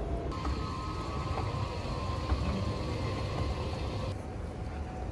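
Running Metro railcar heard from inside: a steady low rumble with a steady high whine over it, which drops out about four seconds in, leaving a duller rumble.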